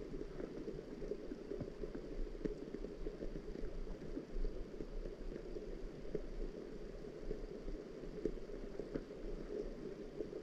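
Steady, muffled rain sound: a dense, even patter of drops, low in pitch, with a low hum underneath.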